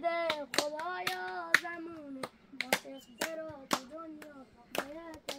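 Sharp hand claps, unevenly spaced at about two a second, over a voice singing long, bending notes.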